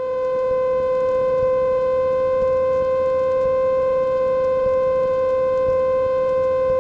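A loud, steady electronic hum in the aircraft's headset and radio audio: one unchanging pitch with a row of overtones above it.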